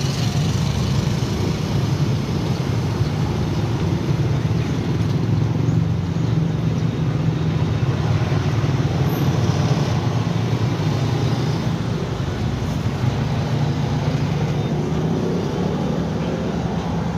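A motor vehicle's engine running steadily, a continuous low drone that holds an even level throughout.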